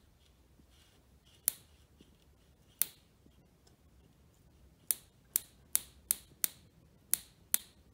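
Ignition spark snapping each time the breaker points open as the distributor is rocked back and forth by hand. There are about nine sharp snaps, widely spaced at first, then about two a second from about five seconds in. The snap marks the point where the static ignition timing is set, here 10 degrees before top dead center.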